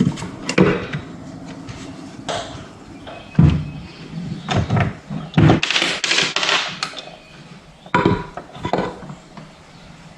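Hand tools knocking and clanking on metal engine parts as the stator cover housing is worked off a Sea-Doo engine: irregular sharp knocks, with a denser run of clatter about six seconds in.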